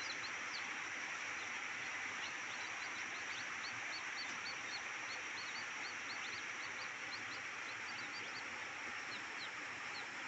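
Small birds chirping: short high chirps, about three a second, over a steady background hiss.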